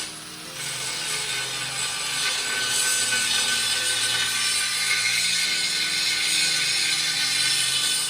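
A power tool grinding or sanding down a fresh weld on an alloy wheel's barrel: a steady, loud, hissing grind with a constant high whine.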